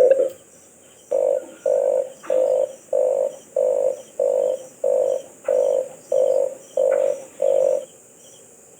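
Red collared dove calling: a run of about a dozen low, rolling coos, roughly two a second, starting about a second in and stopping near the end.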